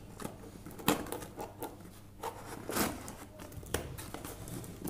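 Scissors snipping through packing tape and cardboard on a parcel box, a handful of separate sharp clicks with crinkling and rustling of the tape and cardboard as it is handled and pulled.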